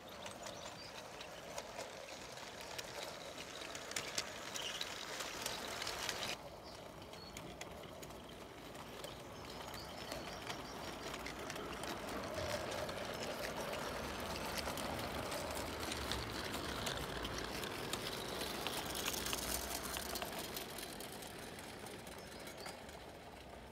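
O gauge model train running along garden track: a steady whirr with rapid fine clicking. The sound drops suddenly about six seconds in, grows louder as the tank locomotive passes, then eases off near the end.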